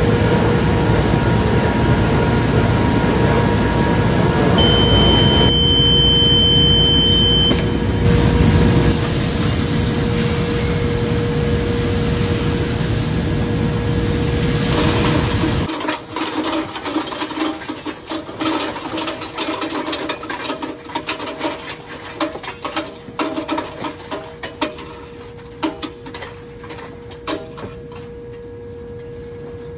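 Tumble-belt shot blast machine running loudly as it blasts a load of coil springs, with a steady high beep for about three seconds around five seconds in. About halfway the heavy blast noise cuts off suddenly and the steel springs clatter and clink irregularly as they tumble on the perforated belt and drop out.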